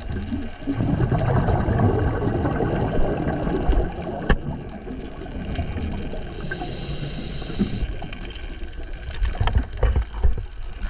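Underwater water noise picked up through a dive camera's housing, with a dense rush of bubbling from about a second in that eases after a few seconds. A few knocks come near the end, and a thin high tone is heard briefly past the middle.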